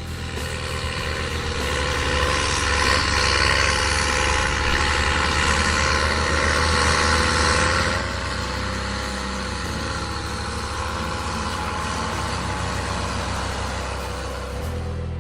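Diesel engines of heavy potato-harvesting machinery running, a steady low hum under a wide mechanical rush. It is loudest in the first half and drops back to a steadier, quieter run about eight seconds in.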